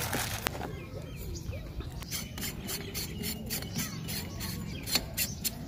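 Handling noise as a rifle-scope sunshade is taken out of its plastic bag and threaded onto the front of the scope. It comes as a run of short rustles, scrapes and clicks.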